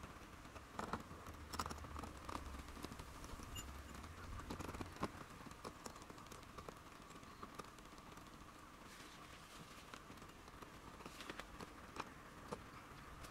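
Faint scattered clicks, knocks and rustling of a car-side tarp being fastened along a van's roof edge by hand.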